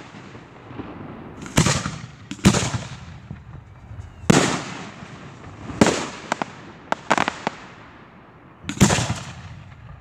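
Aerial firework shells bursting overhead: a string of about seven sharp booms, irregularly spaced a second or two apart, each trailing off in a fading echo.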